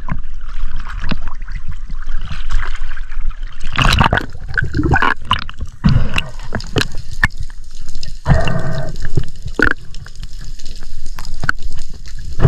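Sea water gurgling and sloshing, with many scattered clicks and knocks and a louder, denser stretch about eight seconds in.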